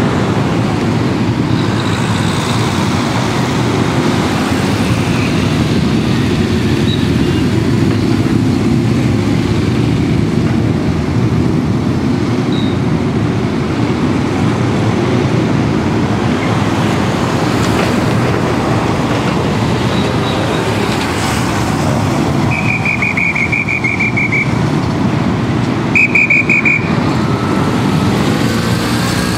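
Motorcycle and car engines running and passing through an intersection in a dense, steady rumble. Near the end a traffic officer's whistle trills twice, the second trill short and loud.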